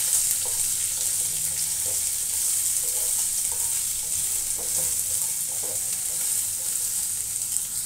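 Chopped onion and whole spices sizzling steadily in hot oil in a nonstick kadhai, being sautéed and stirred with a spatula that taps and scrapes the pan now and then.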